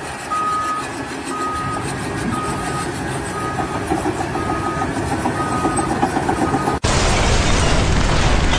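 A vehicle's backup alarm beeping about once a second over running engine noise. About seven seconds in, it cuts abruptly to a loud, steady rushing noise.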